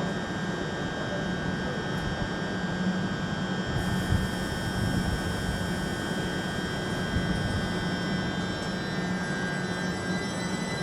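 Train running steadily: a low hum with several high-pitched whines held at one pitch.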